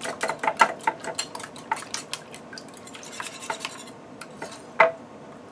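Wire whisk beating eggs and heavy cream in a ceramic bowl: a quick run of clicks as the wires strike the bowl, thinning out and fading about three to four seconds in, then one louder clink near the end.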